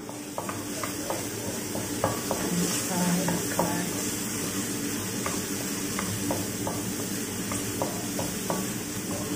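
Minced garlic sizzling in hot oil in a honeycomb-textured stainless steel wok, with a wooden spatula scraping and tapping against the pan in short, irregular clicks as it is stirred.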